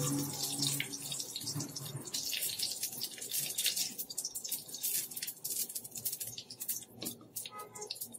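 White mustard seeds sizzling in hot cooking oil, with a steady hiss and many small irregular pops and crackles: the tempering (phoron) stage, as the seeds heat up.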